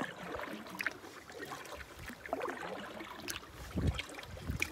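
Water lapping and splashing against a canoe's hull as it is paddled across choppy water in wind, with many small clicks and splashes. Low rumbles of wind on the microphone come near the end.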